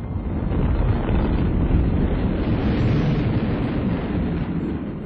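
Rumble of a huge explosion's blast: a dense, deep roar of noise that swells and then fades away near the end.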